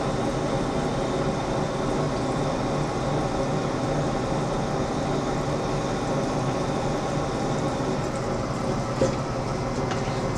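A Monarch engine lathe runs steadily with an even mechanical drone as a 1¼-inch reamer in the tailstock is fed into the spinning steel bar to finish the bore to size. Coolant pours over the cut. A light click sounds about nine seconds in.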